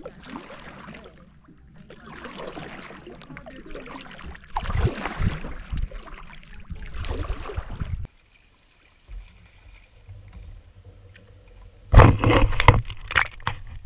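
Kayak paddle strokes in the water, a rushing swish every second or two, louder in the middle. Near the end, a run of loud knocks and clatter.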